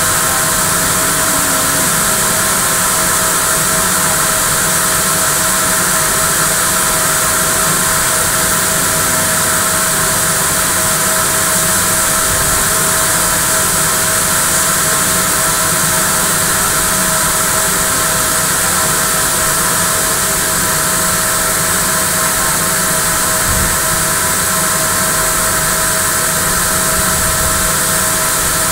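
Steady, loud din of circular knitting machines running in a knitting mill: an even hiss with a constant hum beneath it.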